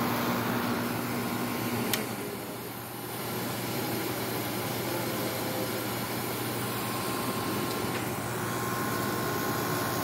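Haier 5000 BTU window air conditioner running with its compressor on: a steady, quiet rush of fan air over a low hum. A single click sounds about two seconds in.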